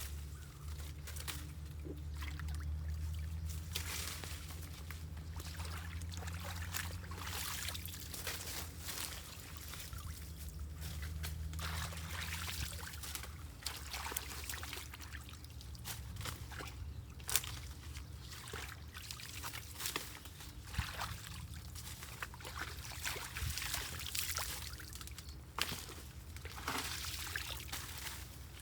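Floodwater pouring and splashing, with frequent short sharp splashes over a steady low rumble that eases about halfway through.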